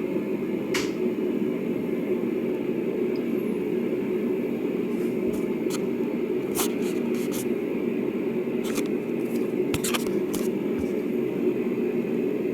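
Windmere DF-16 16-inch oscillating table fan coasting down after being switched off from high: a steady rush of air from the still-spinning blades, with a few light clicks. It takes a long time to spin down.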